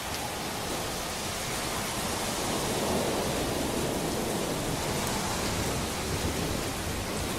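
Heavy thunderstorm rain pouring down, a steady hiss that grows a little louder about two seconds in.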